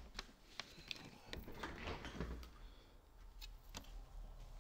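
Faint, irregular clicks and knocks over a low rumble: a handheld camera being carried and handled in a quiet room.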